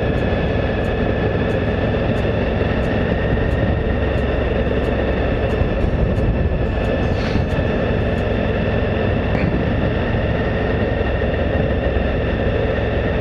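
2014 Suzuki V-Strom 1000 motorcycle riding at a steady speed: a constant rush of riding noise with a steady high whine over it.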